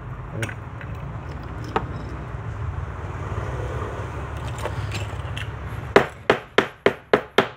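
Small metal hand tools clicking against a workbench, ending in a quick run of about six sharp taps, roughly three a second, over a steady low hum.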